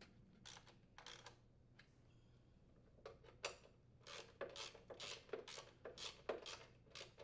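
A socket ratchet driving the mower's engine-housing mounting screws: short bursts of metallic ratchet clicking as the handle swings back and forth. There are two soft strokes near the start, then about ten quicker strokes from about three seconds in.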